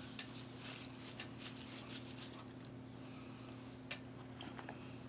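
A few faint clicks and light rustles of crackers being handled in a plastic meal tray, with one sharper click about four seconds in. A steady low electrical hum runs underneath.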